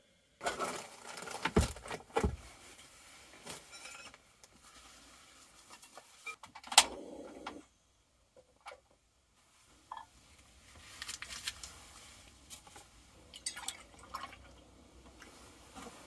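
Kitchenware being handled: knocks and clicks as a plastic food container, a tray and a metal pan are moved and set down on a table. The sharpest click comes about seven seconds in.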